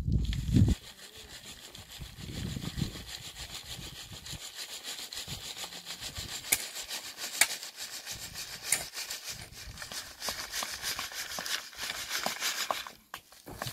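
Rapid, evenly repeated rasping strokes of a hand tool, with a few sharper clicks among them. The strokes stop about a second before the end.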